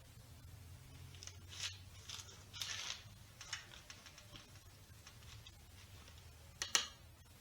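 A spoon scraping cooked pumpkin flesh off the shell and into a food processor bowl: scattered soft scrapes and taps, with a sharper double knock near the end.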